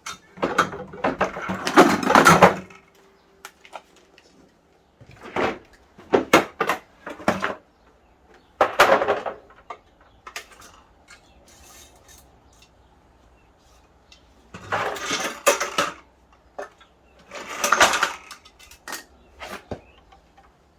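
Metal parts and tools clanking and clinking in about five bursts with quiet gaps between, as the steel frame and fittings of an exercise bike are handled and taken apart.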